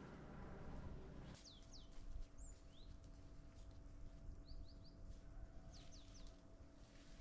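Small birds calling faintly: short high whistled notes, several falling in pitch and a quick run of three near the middle, starting about a second and a half in. A faint steady hum and low rumble lie underneath.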